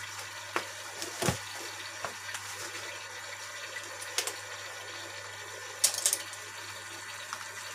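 PVC tarpaulin being handled and smoothed by hand at a sewing machine: scattered crinkles and light knocks, the loudest crinkling about six seconds in, over a steady low hum and hiss.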